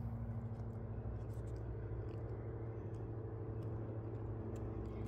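Steady low hum of background noise with a few faint ticks.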